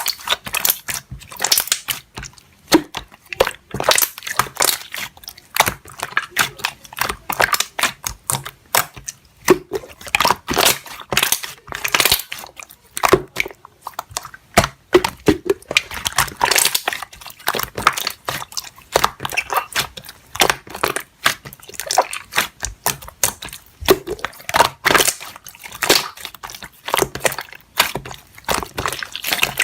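Slime being kneaded and pressed by hand, giving a continual run of irregular sticky clicks and pops.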